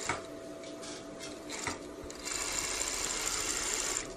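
Industrial overlock machine (serger) sewing: a few light clicks as the fabric is set under the foot, then the machine runs steadily at speed from about two seconds in and stops shortly before the end.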